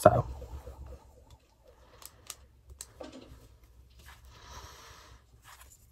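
Faint handling sounds: a few light clicks about two to three seconds in and a short soft rustle near the end.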